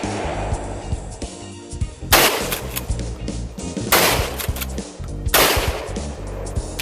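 Three gunshots over background music. The first comes about two seconds in; the next two, about four and five and a half seconds in, are from a pump-action shotgun. Each shot trails off over about a second.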